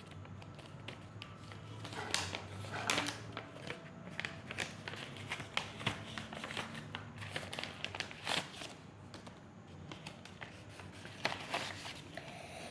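Packaging crinkling and rustling by hand, with scattered clicks and taps, as a blind bag is cut open and its contents taken out.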